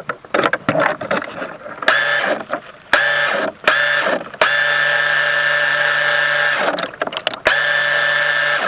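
Mini RC boat's small motor, heard from on board, running in bursts: a steady whine starts about two seconds in, cuts on and off a few times, holds for about two seconds in the middle, and comes back once more near the end. Clicks and handling knocks come before it.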